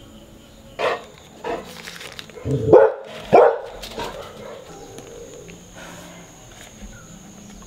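A dog barking four times in quick succession in the first few seconds, the last two barks the loudest.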